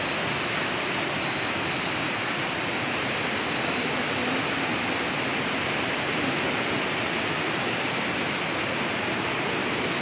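Steady rush of river water, an even noise that does not change, with a thin steady high whine above it.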